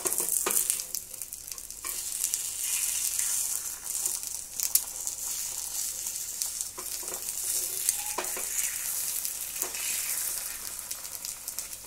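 Egg paniyaram frying in oil in a paniyaram pan, a steady sizzle, with scattered clicks and scrapes of a metal utensil against the pan as the paniyarams are turned over.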